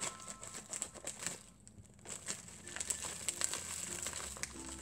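Plastic courier mailer bag crinkling and rustling as it is cut with scissors and pulled open, with a short lull about a second and a half in.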